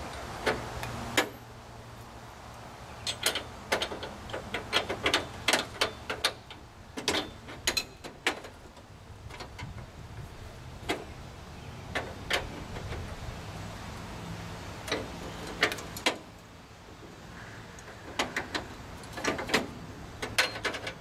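Irregular metallic clicks and knocks of hand tools working on air line fittings on a semi truck's frame, coming in short clusters of quick clicks.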